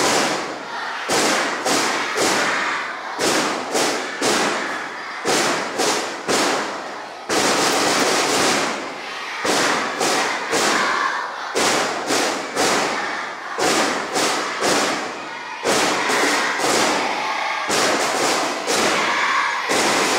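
An irregular series of loud thuds and bangs, about one or two a second, each trailing off over a fraction of a second.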